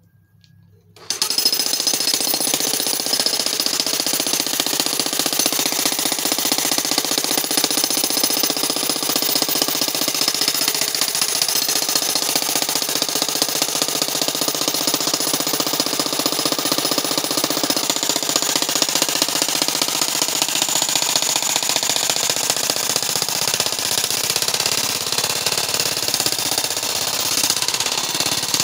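Handheld jackhammer hammering continuously as its chisel breaks up rocky ground; it starts about a second in and runs on steadily at full power.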